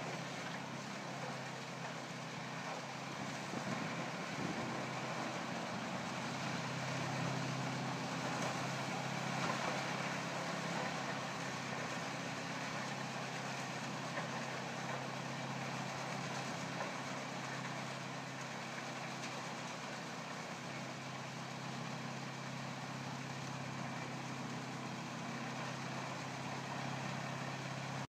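Truck-mounted Eschlböck Biber 84 drum wood chipper running under load, a steady engine drone beneath a continuous rush of wood being chipped and chips blown out of the discharge spout. It cuts off suddenly at the very end.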